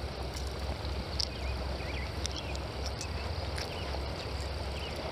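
Riverside outdoor ambience: a steady low rumble with an even hiss over it, and a few faint, short bird chirps scattered throughout.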